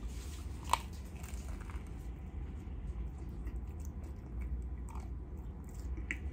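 A bite into a toasted everything bagel sandwich with lox and cream cheese: one sharp crunch just under a second in, then chewing.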